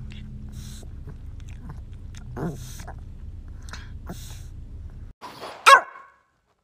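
Small senior dog barking once, a sharp loud bark about five and a half seconds in. Before it there is a faint steady hum with soft clicks and one short quiet whine.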